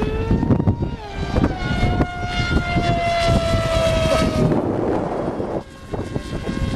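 Electric RC plane's motor and propeller whining in flight, several tones together, the pitch sliding slowly downward as it flies past. The sound drops out briefly about five and a half seconds in, then a steady whine resumes.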